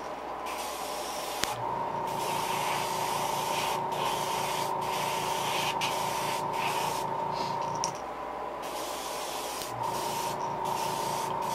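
Airbrush spraying acrylic paint onto a fishing lure: a hiss broken by brief pauses about once a second, over a steady hum.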